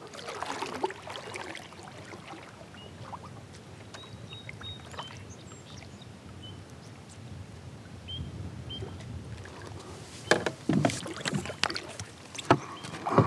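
Quiet lapping of a drifting kayak with a few faint, short, high chirps, then from about ten seconds in a kayak paddle jabbed down into the shallow lake, splashing and knocking loudly several times against a solid rock bottom, too hard for the blade to dig in and hold the kayak.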